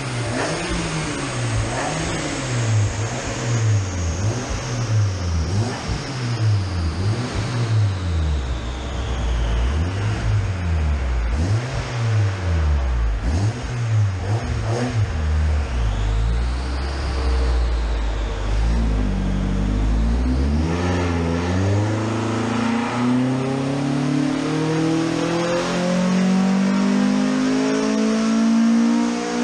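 Ford Focus ST170 four-cylinder engine, breathing through individual throttle bodies, running on a rolling-road dyno: for the first half its note dips and climbs again about once a second as the revs are swung up and down. After a low steady spell, a long, steady climb in pitch over about eight seconds near the end: a wide-open-throttle power run.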